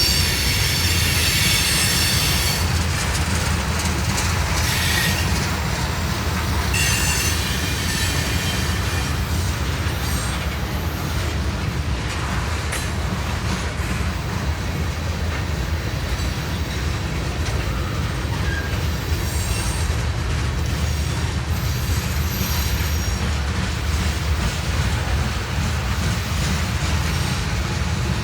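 Freight train cars rolling past with a steady low rumble, their wheels squealing in high tones at times, most strongly in the first couple of seconds.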